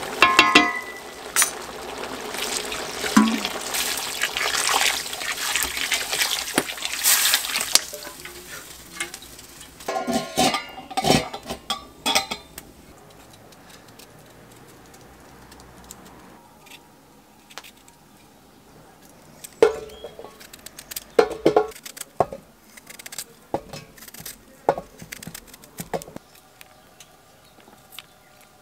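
A wooden spoon stirs a steaming pot of wheat-and-meat stew over a wood fire, with a steady hiss of cooking. About ten seconds in, this gives way to a knife peeling and cutting quinces on a wooden board, with scattered clicks and knocks of the blade.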